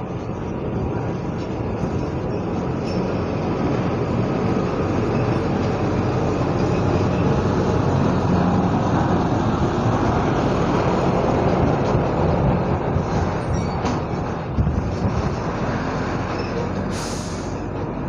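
Noise of a passing motor vehicle, growing louder toward the middle and then slowly fading, with a short hiss near the end.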